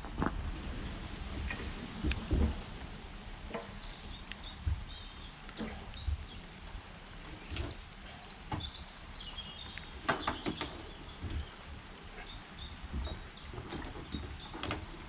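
Small birds singing, with repeated high chirps and trills, over a low outdoor rumble. A few short knocks come through now and then.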